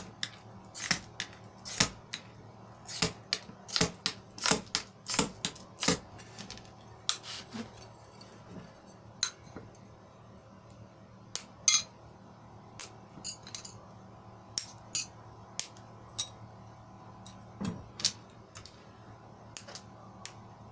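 Diamond-tipped glass cutter scoring thin mirror glass along a ruler in a quick run of short scratching strokes. After about six seconds it gives way to sparser sharp clicks as the scored mirror is snapped into strips by hand.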